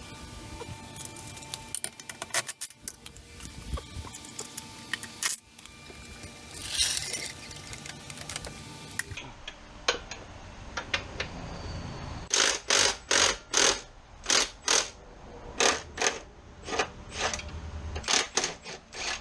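Workshop sounds of hands and tools on the car: scattered clicks and knocks, then, about two-thirds of the way in, a run of short rasping mechanical strokes, roughly two a second.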